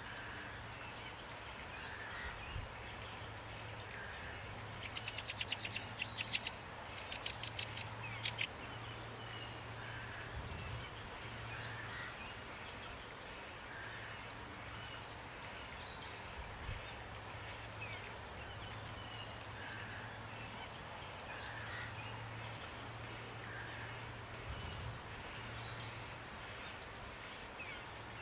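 Steady rain hiss with many small birds chirping high and brief. About five seconds in, one bird gives a rapid trill of quick repeated notes lasting a few seconds, the loudest sound here.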